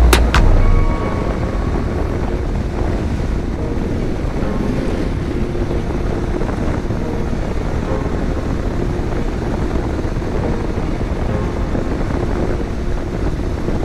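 Steady wind rush over the microphone together with the running of a Honda NC700X's parallel-twin engine while cruising at road speed. Background music cuts out about a second in.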